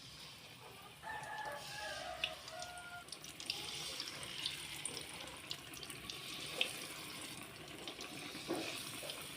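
A rooster crows once about a second in, over a steady hiss of running water. Scattered sharp clicks and splashes run through the hiss.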